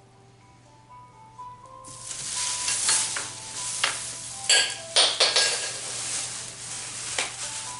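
Handling noise: loud rustling and scraping with a few sharp clicks starts about two seconds in, over soft background music with a few held notes.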